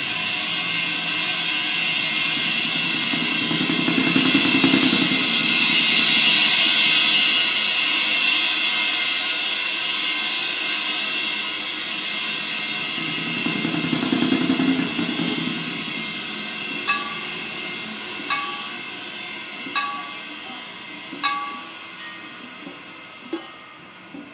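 Stack of suspended cymbals played with mallets, a sustained shimmering wash that swells twice and then fades away. Over the second half, short sharp strikes sound about every second and a half.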